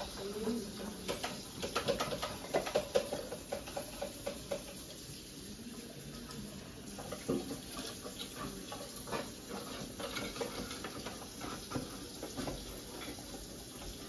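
Scattered light clicks and taps of paintbrushes, plastic paint palettes and cups handled on a stone countertop, with faint children's voices now and then.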